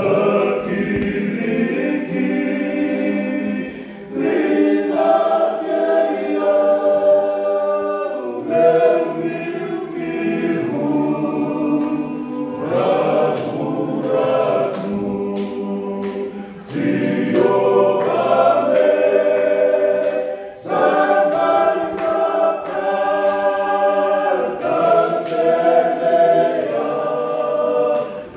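Men's choir singing a Fijian hymn unaccompanied, in sung phrases broken by short pauses for breath about every four to eight seconds.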